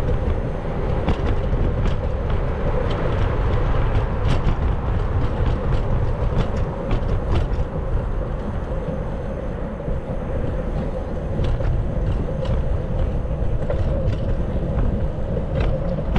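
Steady low rumble of riding a bicycle over city pavement, with scattered clicks and rattles.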